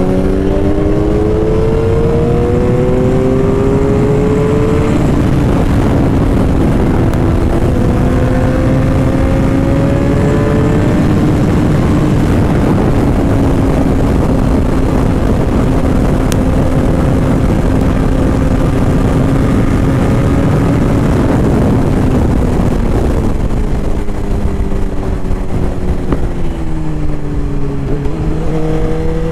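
Suzuki GSX-R sportbike's inline-four engine accelerating hard, then holding a steady high cruising speed under loud wind rush. About 23 seconds in the revs drop as the bike slows, then rise again near the end.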